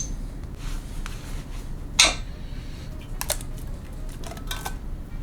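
Metal clinks and knocks of rotary-engine parts and tools being handled, the loudest a sharp clank about two seconds in, followed by a few lighter clinks.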